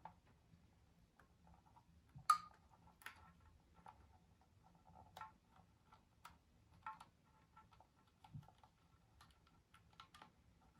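Irregular light clicks and taps, about a dozen, spaced unevenly; the sharpest comes a little over two seconds in.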